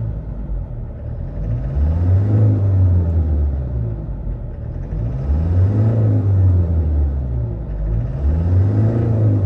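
Toyota Hilux four-cylinder diesel engine being revved up and let back down about three times in a row, part of a scan-tool procedure after an injector was refitted to cure a cylinder 1 misfire.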